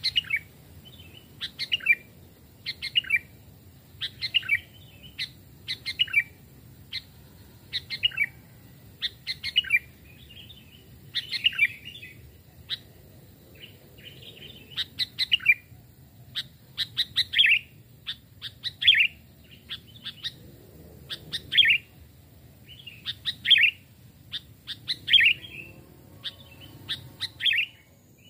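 Sooty-headed bulbuls (kutilang) calling: short, bright chirpy phrases repeated about once every second or so.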